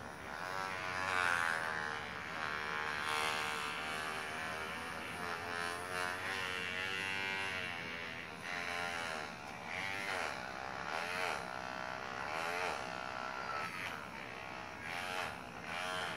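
Small battery-powered vibrating head massager buzzing, its pitch wavering up and down as it is pressed and moved over a beagle's head and neck.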